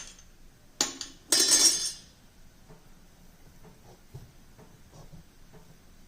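Kitchen utensils clattering: a sharp clink about a second in, then a longer ringing clatter, followed by a few faint light taps.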